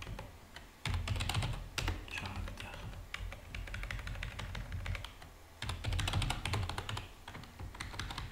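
Typing on a computer keyboard: two quick runs of keystrokes about a second in and again near six seconds, with scattered single key presses between.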